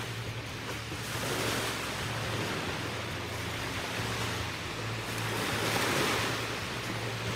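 Small waves washing onto a sandy beach, the wash swelling about a second and a half in and again around six seconds, over a low steady hum.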